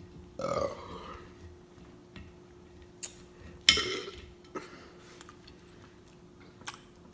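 Mouth sounds of a person eating: a short voiced sound about half a second in and a louder, sharp mouth sound near the middle, with a few light clicks of cutlery against a dish. A faint steady hum runs underneath.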